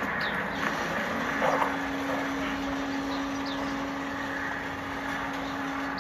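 Railway station ambience: a steady mechanical hum, with a steady low tone entering about half a second in. A bird gives short, high, falling chirps about once a second.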